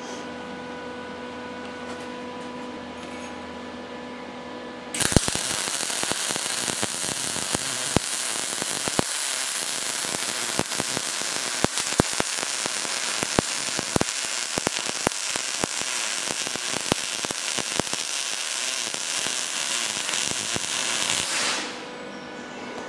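MIG welding arc running one continuous bead on steel sheet for about sixteen seconds, a steady crackle full of sharp pops. It starts suddenly about five seconds in and cuts off about a second before the end. A steady electrical hum is heard before and after it.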